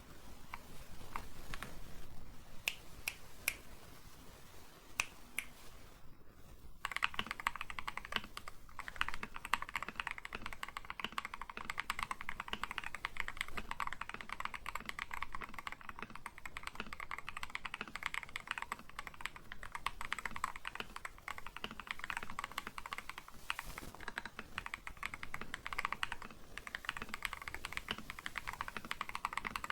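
Typing on an Akko 5075 gasket-mounted mechanical keyboard with lubed Akko Cream Yellow V3 linear switches and PBT XDA keycaps. A few separate keystrokes at first, then from about seven seconds in a fast, continuous run of typing.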